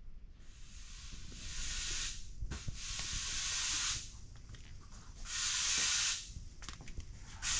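Bursts of high hissing noise, two clear ones of about two and a half seconds and one second, with another starting near the end.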